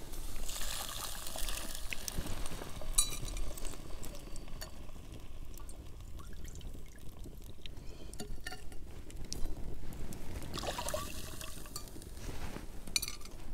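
Water poured from a steel camp cup into a cast iron Dutch oven of sautéed onions over a campfire, in two pours, one near the start and one near the end, with small clinks between.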